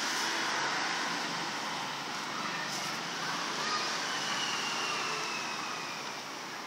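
Steady background noise, with a faint falling whine in the second half.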